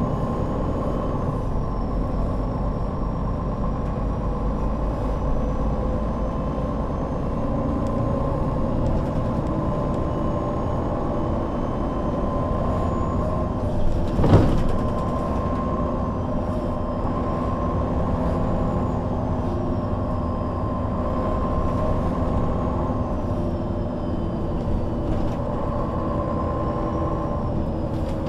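MAN NL 263 low-floor city bus under way: its diesel engine and drivetrain running steadily, with a faint high whine that rises and falls. A single sharp knock sounds about halfway through.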